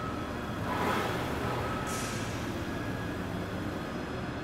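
Wheeled transporter carrying a rocket engine section humming steadily as it moves, with a short hiss about two seconds in.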